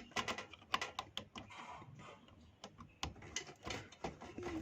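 Faint, irregular small clicks and taps of front-panel connector plugs and their thin leads being handled and pushed onto a motherboard's header pins.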